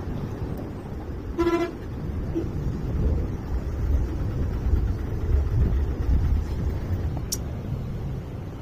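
Road traffic rumbling steadily, with one short vehicle horn toot about a second and a half in.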